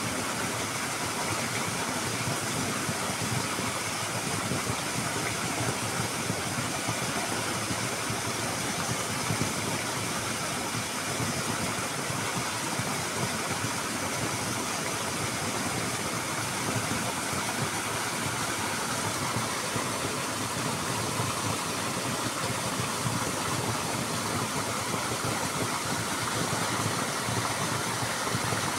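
Steady rush of water falling over a brick wall and splashing into a churning pool below.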